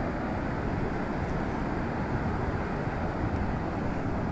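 Steady rush of ocean surf breaking along the beach.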